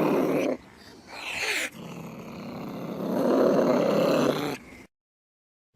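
Cat growling in long, rough, low stretches, broken about a second in by a short gliding cry, then cut off to silence near the end.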